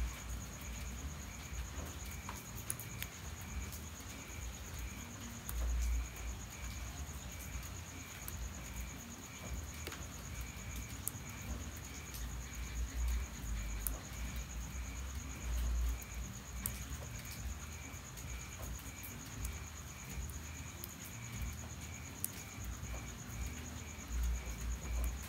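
Crickets chirping: a steady high-pitched trill with a softer pulsed chirp about three times a second, over a faint hiss with scattered light ticks. A few brief low rumbles break in, about six seconds in, around sixteen seconds in and near the end.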